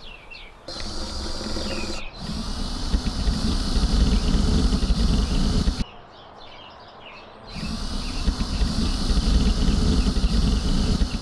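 Wind buffeting the microphone: a rough, irregular low rumble in two long gusts with a lull of a second or two in the middle.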